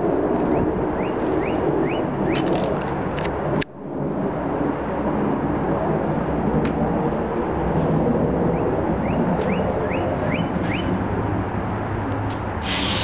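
Jet airliner (Airbus A321) flying overhead: a steady, low engine noise that drops away briefly about three and a half seconds in. A bird calls over it in two runs of short rising chirps.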